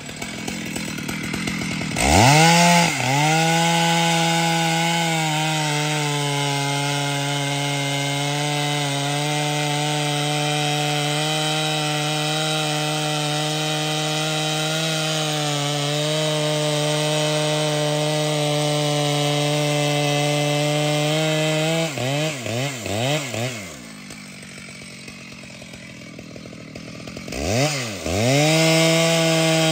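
Large professional two-stroke chainsaw cutting trembesi wood. It revs hard about two seconds in and holds full throttle under load for about twenty seconds. It then gives a few quick throttle blips and drops back to a low idle, and revs up again into the cut near the end.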